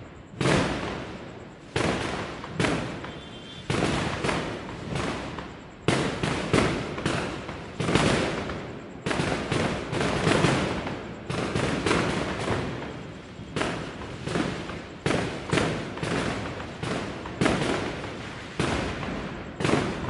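Aerial fireworks bursting in a steady barrage: a long string of sharp bangs, one or two a second, each dying away in a short echoing tail.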